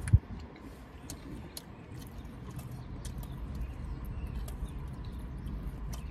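Steady low rumble of a car cabin, with scattered small clicks and smacks of people chewing food. A single sharp knock comes just after the start.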